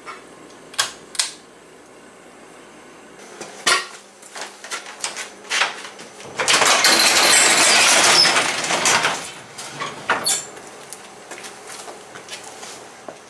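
Two sharp clicks of a pull-chain light switch about a second in, a few knocks and steps, then a sectional garage door opening with a loud metallic rattle for about three seconds near the middle.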